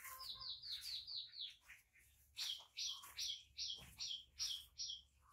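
A bird calling: a quick run of short, high notes that each slide downward, then, after a brief pause, a louder series of about seven more at an even pace, roughly three a second.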